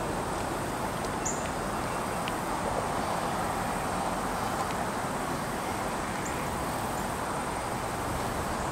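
Steady outdoor background noise, an even rumble and hiss, with a faint steady high whine and one short high chirp about a second in.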